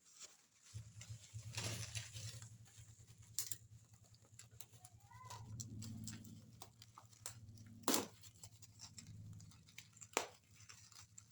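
Cardboard box and packaging being handled and opened: scattered clicks, rustles and short tearing sounds over a low steady hum, with a brief bird chirp about five seconds in.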